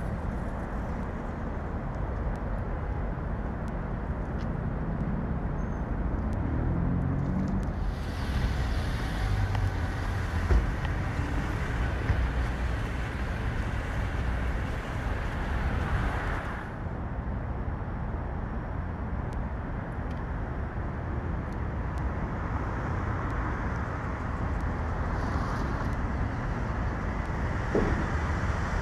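City street traffic noise: vehicles running and passing with a steady low rumble, and a louder, hissier stretch in the middle.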